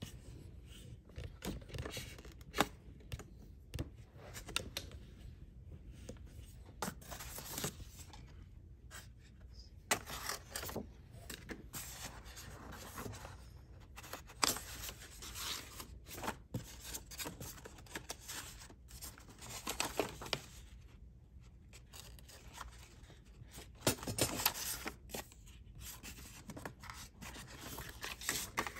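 Knitting-machine packaging being handled: polystyrene foam inserts and cardboard rubbing and scraping irregularly, with paper rustling and a few sharp clicks and knocks.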